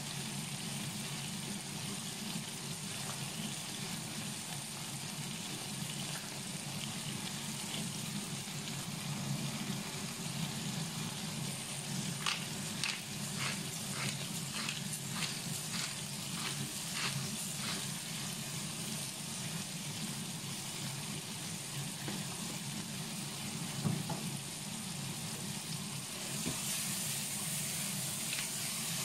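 Sliced onions and tomatoes sizzling steadily as they fry in oil in a nonstick frying pan. About twelve seconds in, a run of light, evenly spaced ticks comes for several seconds.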